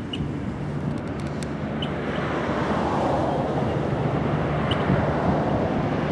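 Steady outdoor noise of distant road traffic, growing louder about two seconds in and holding, with a few faint short chirps over it.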